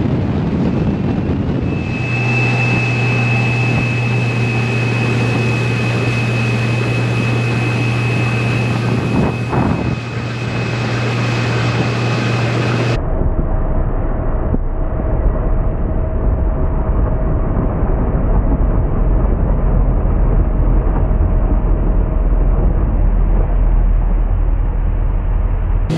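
Outboard motors running at speed on open water, with a steady engine whine mixed with wind and water noise. About halfway through the sound cuts abruptly to a deeper, lower drone.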